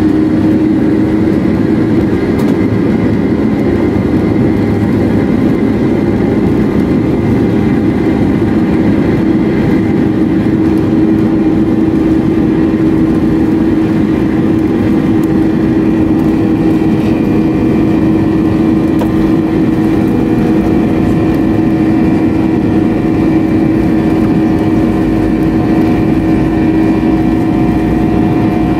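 The CFM56-7B turbofan engines of a Boeing 737-900ER at takeoff thrust, heard from inside the cabin over the wing during the takeoff roll. A loud steady roar carries a steady low hum and a higher whine, and a deeper rumble builds near the end as the plane gathers speed.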